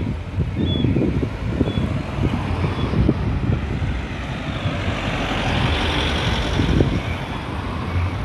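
Road traffic: car engines and tyres running, with one car driving past close by about five to seven seconds in. A faint short high chirp repeats about once a second in the first few seconds.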